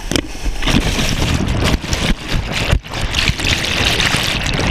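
Loud rushing and splashing of whitewater rapids around a raft, with a brief lull about three seconds in.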